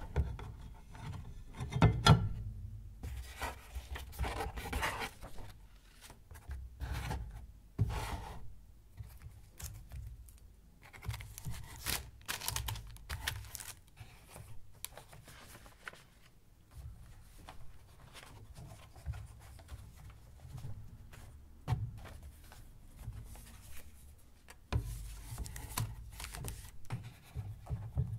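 Paper sleeves and glass photographic plates being handled in a cardboard box: paper sliding, rubbing and rustling, with scattered light knocks. The loudest knock comes about two seconds in.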